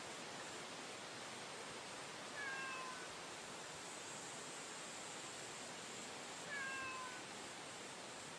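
Street cat meowing twice: two short calls, each falling slightly in pitch, about four seconds apart, over a steady hiss.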